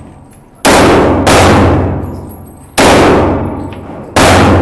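Glock pistol firing four shots at an uneven pace, two about half a second apart and then two more about a second and a half apart, each shot trailing off in a long echo.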